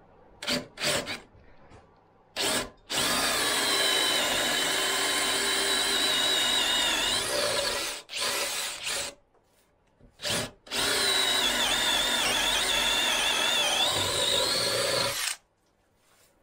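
DeWalt cordless drill boring into a wooden beam with a wide wood bit: a few short trigger blips, then two long runs of about five seconds each with short blips between them. The motor whine dips briefly under load and cuts off suddenly near the end.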